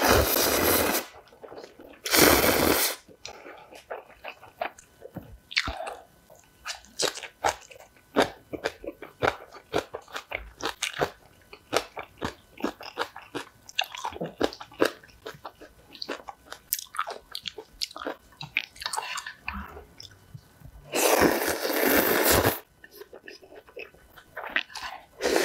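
A person slurping spicy instant ramen noodles in long loud pulls, twice right at the start and once more late on, with close-miked chewing in between: many small wet clicks and smacks.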